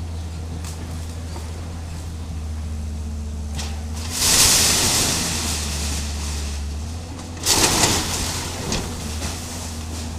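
Excavator's diesel engine running steadily while its bucket tears into a wooden house with a corrugated-iron roof. Two loud crashes of splintering timber and crumpling metal sheeting come about four seconds in and again about seven and a half seconds in.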